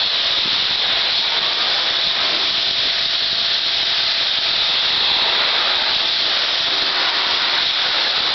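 Triace pressure washer's high-pressure water jet blasting onto timber deck boards: a steady, unbroken hiss, with a faint steady hum underneath.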